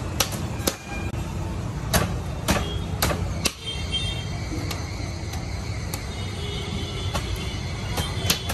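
Irregular sharp slaps as freshly cooked layered parottas are clapped and crushed between a cook's palms to loosen their layers, over a steady low rumble.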